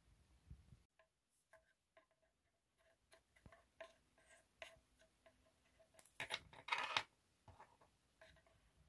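Faint clicks and taps of hard plastic being handled: a C-shaped plastic insert being fitted to the face mask's plastic stand, with a louder cluster of scrapes and clicks about six seconds in, lasting under a second.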